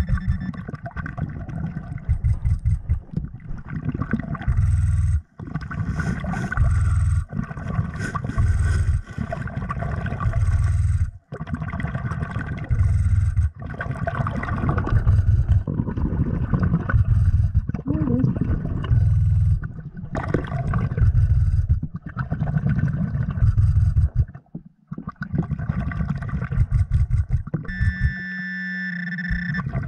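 Underwater noise on the lake bottom: heavy, uneven low rumbling and knocking, with scrapes and clicks as the diver moves over the sand. Near the end a steady tone lasts about a second and a half.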